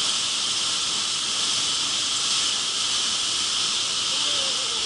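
Shallow mountain stream rushing over stones and pebbles, a steady, even hiss of running water.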